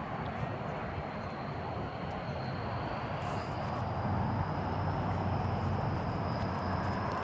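Steady low outdoor rumble with a faint thin high whine held throughout, and a few light clicks about three seconds in.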